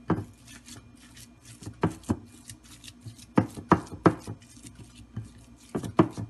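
Bare hands kneading and squeezing raw ground beef in a glass bowl to work a spice blend into it: irregular squishes and slaps, often two close together.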